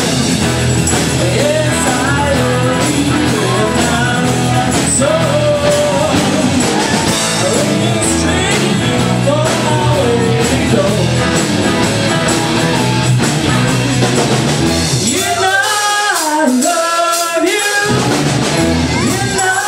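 Live rock band playing: electric guitars, bass and drums under a woman singing. About fifteen seconds in, the bass and drums drop out and the voices carry on over a thinner backing.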